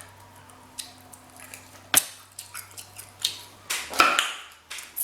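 Close-up eating sounds of a person chewing a seafood boil: wet mouth smacking with scattered sharp clicks, a sharp snap about two seconds in and a louder crackle about four seconds in.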